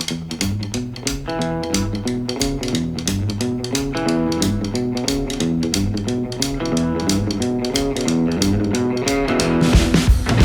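Upbeat intro music: a boogie-woogie tune with guitar, bass and drums keeping a steady beat.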